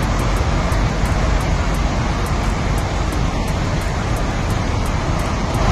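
Floodwater rushing through a street: a loud, steady rushing noise with a heavy low rumble.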